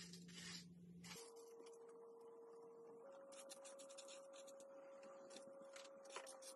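Near silence with faint clicks and scratches of small plastic Aquabeads being rummaged in a plastic tray and set onto a plastic pegboard, over a faint steady hum that steps up in pitch twice.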